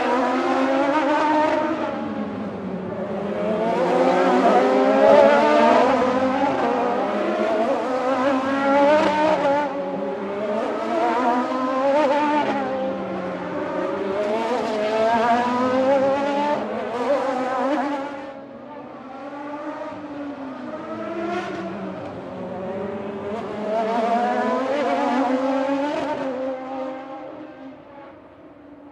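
Grand Prix race car engines running at high revs, several at once, their pitch climbing and dropping through the gears as the cars pass one after another. The sound drops back about 18 seconds in, swells again, then fades out near the end.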